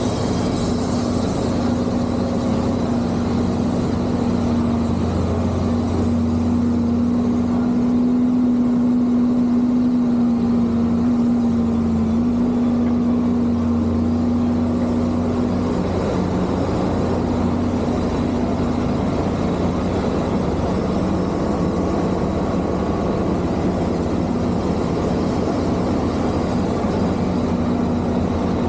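Heavy diesel engine of log-handling equipment running steadily, a continuous low hum with a held tone that fades partway through and comes back later.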